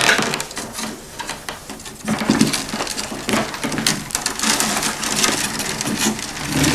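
Willow rods creaking and crackling as sharpened willow stakes are pushed and worked into the woven base of a wicker basket, with many small irregular clicks and rustling of the long rods.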